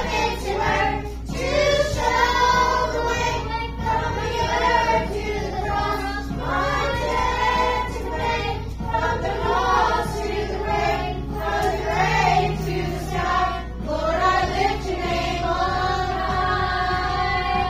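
A group of children singing a song together over instrumental accompaniment with a bass line.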